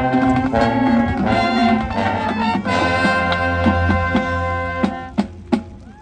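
High school marching band playing loud held brass chords over a low bass line, with a few sharp drum hits about five seconds in as the music falls away.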